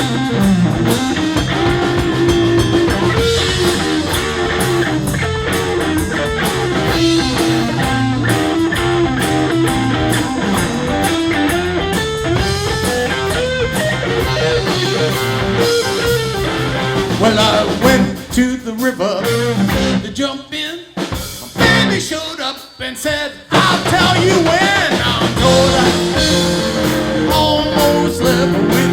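Electric blues band playing an instrumental break: a lead guitar solo with bent notes over bass and drums. About two-thirds of the way through, the band plays a few seconds of stop-time hits with gaps between them, then comes back in full.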